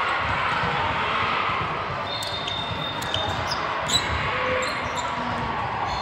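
Ball game on an indoor court: a ball bouncing on the floor and short high shoe squeaks over steady hall noise, with one sharp thud about four seconds in.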